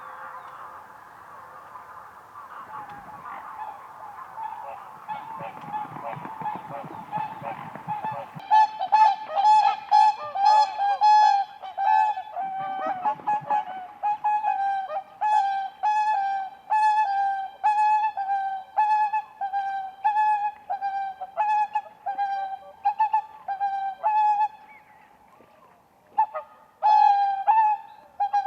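Whooper swans calling: at first a blurred chorus of many birds, then from about eight seconds in a run of loud, trumpeting honks about two a second. The honks break off briefly near the end and start again.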